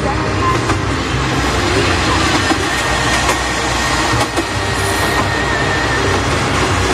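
Steady driving rumble of a car heard from inside its cabin at speed. A KiRo 47 diesel tourist railcar runs alongside on the parallel track, and a thin high whine comes in from about two and a half seconds in to about six.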